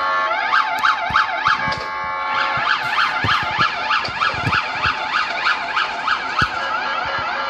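Dubai Police sirens on a fast yelp, the pitch sweeping up and down about four times a second, with more than one siren sounding at once.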